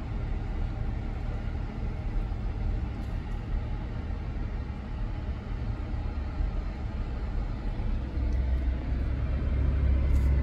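Jeep driving slowly over loose volcanic cinder, heard from inside the cabin: a steady low rumble of engine and tyres on the gravelly surface, growing louder about eight seconds in.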